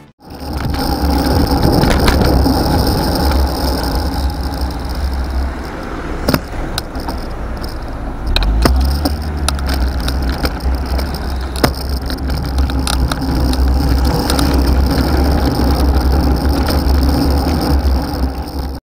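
Wind rumbling on a handlebar-mounted bicycle camera's microphone while riding, mixed with tyre and road noise and passing car traffic. A few sharp clicks come through, around a third of the way in and again past the middle.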